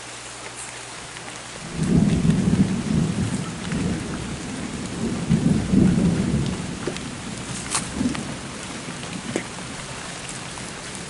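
Steady rain falling on wet grass and leaves. A low rumble of thunder starts about two seconds in and rolls on for several seconds before fading.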